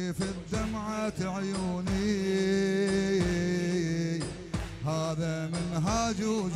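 Male reciters chanting a bandariya, an Iraqi Shia devotional chant, in long held and ornamented sung lines over amplified microphones. A regular beat, about one stroke every two-thirds of a second, keeps time under the voice.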